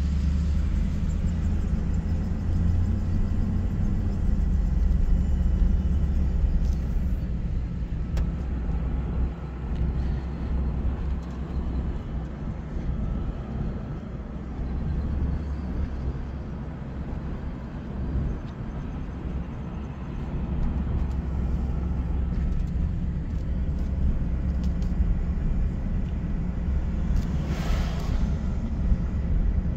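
A car driving along a cracked paved road, heard from inside the cabin: a steady low rumble of engine and tyre noise, easing slightly midway, with a brief hiss near the end.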